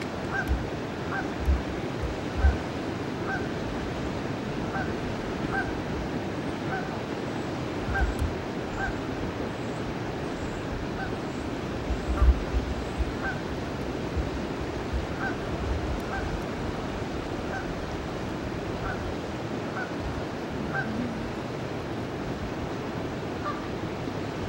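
Steady rush of the river running fast below a dam, with Canada geese honking in short calls over and over, about one to two a second. A few low thumps of wind hit the microphone.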